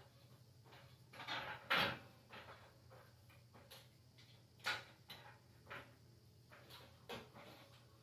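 Scattered knocks and clunks of hand work under a car: tools and parts bumping against metal. The loudest knock comes just under two seconds in, with another near five seconds.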